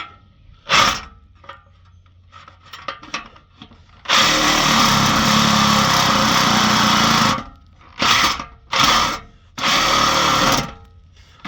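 Electric power saw cutting through the Charger's exhaust pipe to free the rear muffler: a short burst, a steady run of about three seconds, then three shorter bursts as the cut finishes.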